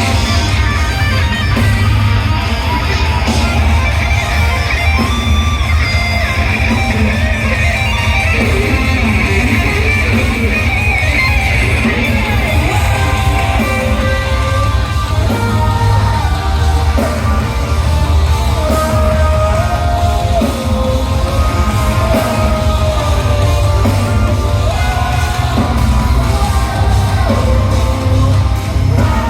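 Live band playing loud guitar-driven rock music, with a stepping lead melody coming in about halfway through.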